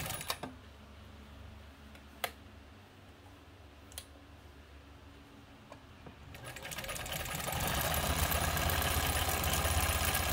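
German-made Kenmore 89 Lady Kenmore sewing machine stops and gives a few sharp clicks. About six seconds in it starts up again, speeding up over a second or so, then runs fast and steadily, sewing a wide zigzag stitch.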